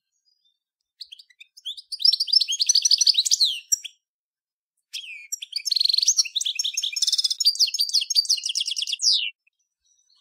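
European goldfinch of the large 'major' race singing: a few soft notes, then a rapid twittering phrase, and after a short pause a longer phrase with fast trills that stops about a second before the end.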